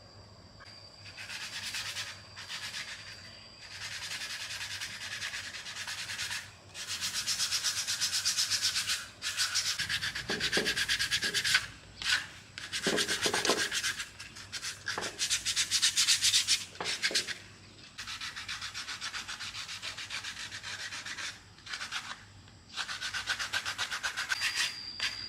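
Rapid back-and-forth abrasive rubbing, as in hand sanding or scrubbing a machine part, in runs of one to three seconds with short pauses between.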